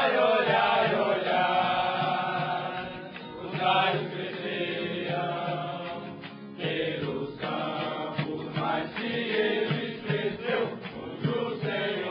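Music with singing voices.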